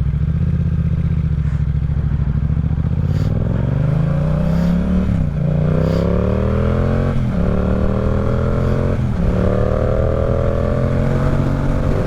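Yamaha R7 motorcycle's parallel-twin engine accelerating under way, its note climbing in pitch and dropping back at each upshift, about four gear changes.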